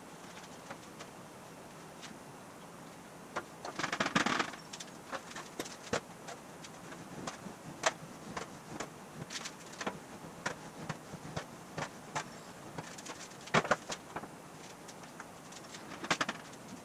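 Aluminium sheet panel being rolled back and forth through an English wheel whose upper wheel is wrapped in a rubber band, shaping a one-direction curve: scattered light metallic clicks and taps, with louder rattling clusters about four seconds in, about thirteen and a half seconds in and near the end.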